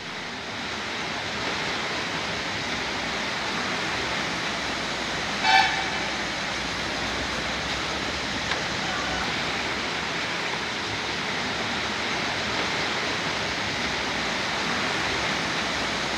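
Steady rushing noise of fast-flowing floodwater, with a short vehicle horn toot about five and a half seconds in.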